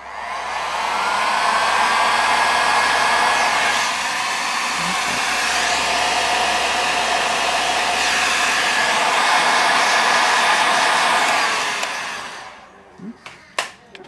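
Heat gun blowing hot air to shrink heat-shrink tubing over a receiver. It spins up at the start, runs steadily with a faint whine, and winds down near the end.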